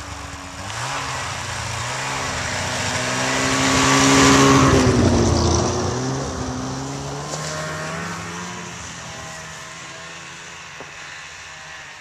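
Snowmobile engine passing close by, getting louder to a peak about four to five seconds in, then dropping in pitch and fading away as it moves off.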